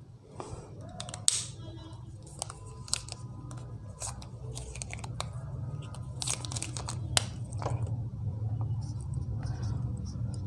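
Whiteboard marker scratching and tapping against the board in short strokes as letters are written, with several sharp clicks from handling the markers, over a steady low hum.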